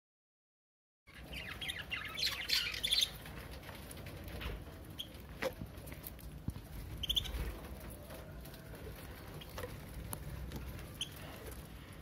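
Budgerigars chirping at a food bowl: a busy flurry of high chirps about a second in, then scattered single chirps and light clicks.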